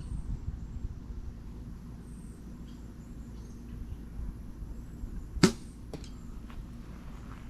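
An arrow shot into a target: one sharp, loud hit about five seconds in, followed by a fainter knock half a second later, over a steady low rumble.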